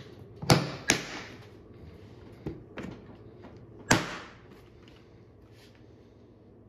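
Hard plastic Pelican 1430 case being closed and handled: about five sharp clicks and knocks, the loudest about half a second in and again just before four seconds.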